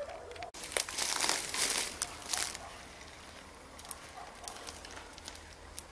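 Rustling and crackling that starts abruptly about half a second in and is loudest for the next two seconds, then thins out into fainter, scattered crackles.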